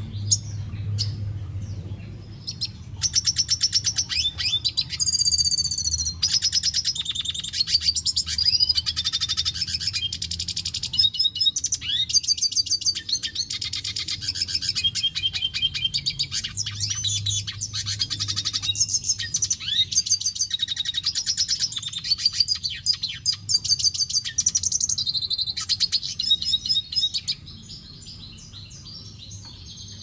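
Male red siskin singing a long, fast twittering song of rapid rattles, trills and high whistled glides, starting about three seconds in and breaking off near the end. A steady low hum runs underneath.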